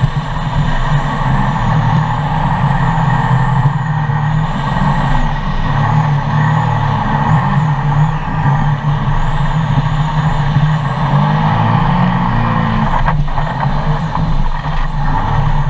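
Jet boat's supercharged engine running hard at speed over a steady rush of water, its pitch wavering up and down with the throttle and a thin high whine rising and falling along with it.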